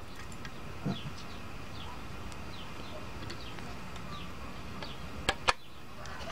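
Small birds chirping in the background, short falling chirps scattered throughout, with a soft knock about a second in and two sharp clicks about five seconds in.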